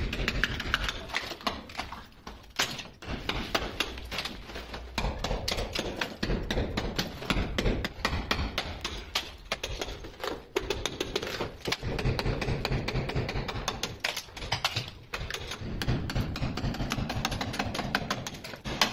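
Club hammer striking a steel cold chisel in quick, repeated blows, chipping old ceramic wall tiles and their mortar bed off a masonry wall.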